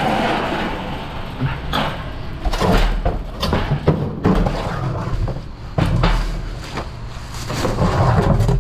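A slatted metal gate being opened, then a large plastic trash drum scraped and knocked against a tiled floor and tipped over: a run of irregular knocks and scrapes over a steady low rumble.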